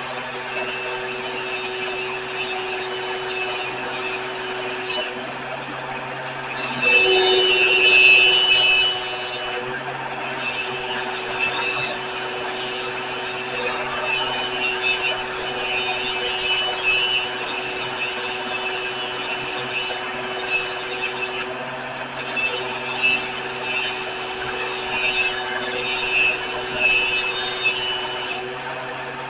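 Grinder running with steel being ground against it: a steady motor hum under a continuous gritty hiss that stops briefly about four times as the piece is lifted off. The steel heating up while ground.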